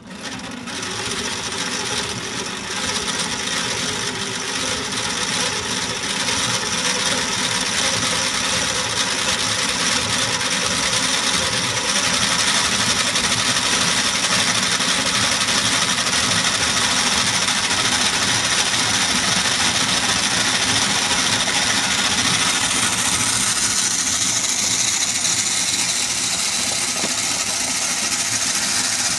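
Merkur construction-set model of a single diesel-engine cylinder running, with its crankshaft, camshaft, pushrods, rocker arms and valves turning over in a steady mechanical rattle. It builds up over the first few seconds, then holds steady.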